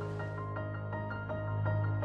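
Background music: a slow melody of short, clear notes over a held low bass note.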